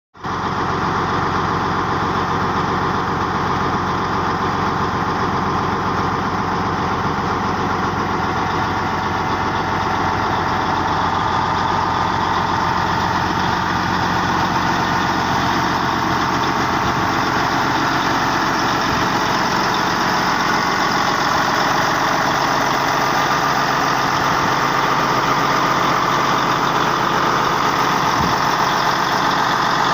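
Caterpillar D8R bulldozer's diesel engine running steadily, without revving up or down.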